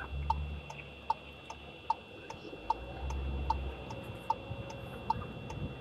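A car's turn-signal indicator ticking steadily, about two to three clicks a second. Under it is a low engine hum that swells briefly near the start and again about three seconds in, as the car pulls away in first gear.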